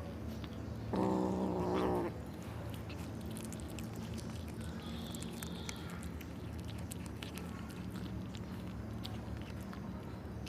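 Kittens eating raw chicken heads: one gives a single drawn-out, low, even-pitched cry about a second in, lasting about a second. Then come small irregular clicks and crunches of chewing on the heads.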